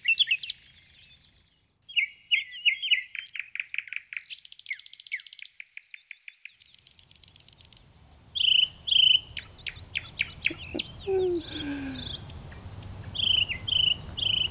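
Songbirds chirping and singing: short chirps and rapid trilled phrases, with a brief pause about a second and a half in. About halfway through, a low steady background noise comes in beneath the birdsong.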